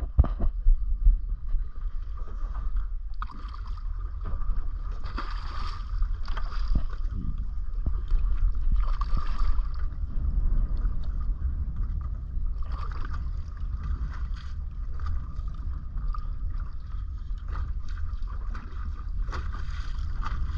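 Wind rumbling on the microphone aboard a small boat, with a steady faint high whine running under it and a few sharp knocks in the first second.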